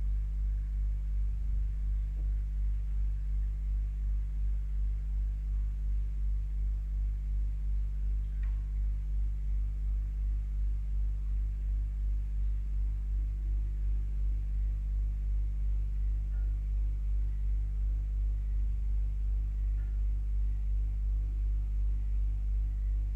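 Pump running with a deep, steady hum that swells and fades in a slow, regular throb, heard through drain piping.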